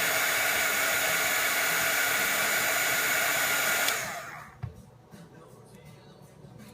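Heat gun blowing hot air, a steady rushing hiss with a constant whine, warming the bottom of the iPod to soften the screen adhesive. It is switched off about four seconds in and winds down, followed by a light tap.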